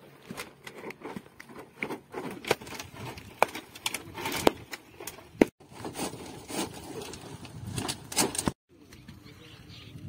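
A short-handled hoe chopping into hard red earth and breaking up clods: an irregular run of sharp knocks and scrapes, cut off briefly twice, with only quieter open-air ambience in the last second or so.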